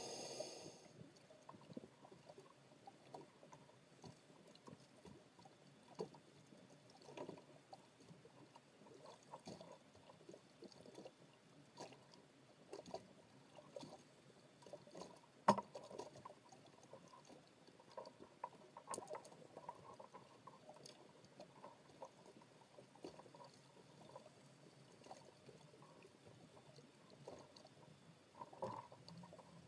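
Faint underwater ambience picked up through a camera's underwater housing: a low hiss with scattered, irregular clicks and ticks, and one sharper knock about halfway through.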